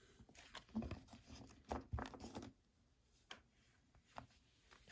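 Trading cards being moved aside by hand: a few soft rustles and taps of card on card and on the table in the first couple of seconds, then two faint clicks.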